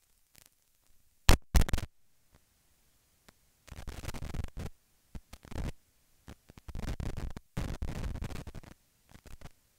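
A contact microphone's own recording of being burned with a lighter: two sharp, loud clicks about a second in, then irregular bursts of scratchy crackling.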